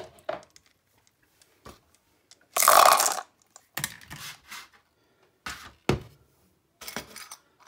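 Glass marbles clattering as they are tipped out of a plastic sieve into a plastic bowl, loudest about three seconds in, amid scattered knocks of plastic bowls handled and set down on a metal baking tray.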